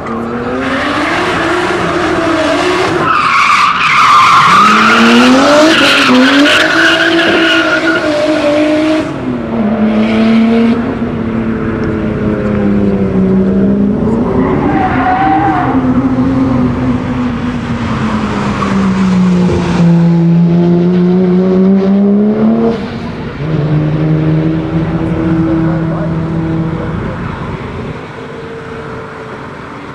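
A drift car's engine revving up and down hard through slides, with tyres squealing, loudest in the first nine seconds or so. The engine keeps rising and falling through further, shorter slides and drops away near the end.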